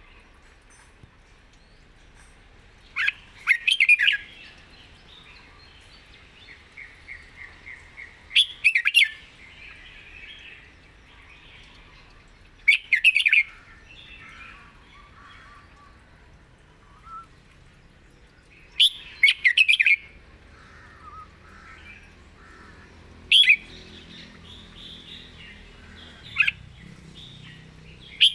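Red-whiskered bulbul singing: short, loud, warbled phrases every few seconds, with softer twittering in between.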